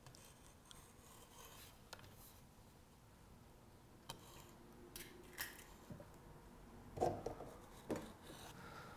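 Faint kitchen handling sounds: a knife scratching along vanilla pods as they are slit open on a wooden cutting board, with scattered light clicks from eggshells being broken apart. A few slightly louder ticks come near the end.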